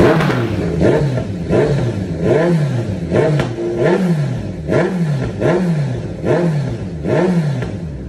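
Kawasaki Z900's inline-four engine revved through an aftermarket exhaust in quick throttle blips, about ten in a row, each rising in pitch and dropping straight back.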